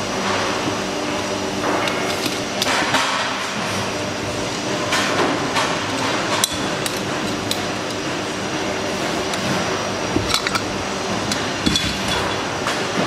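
Parts of a drum sander/polisher being handled and fitted together by hand: scattered sharp clicks and knocks of its metal and plastic guard, handle and head against the motor body, over a steady background hum.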